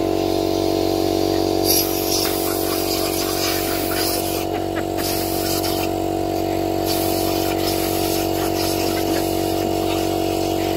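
Air compressor running with a steady motor hum while it inflates a car tyre. Air hiss at the tyre valve starts about two seconds in and comes and goes.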